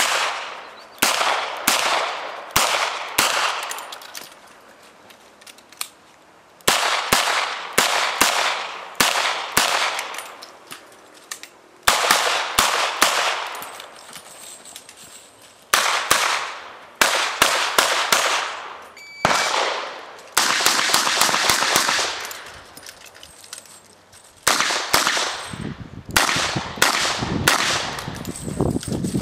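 Revolver fired in fast strings of several shots each, the strings broken by short pauses of one to three seconds.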